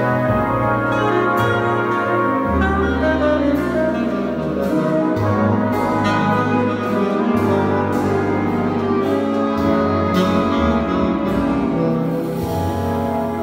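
Jazz big band playing, with brass and saxophones holding full chords over low bass notes that change every second or two, and sharp strokes from the drum kit.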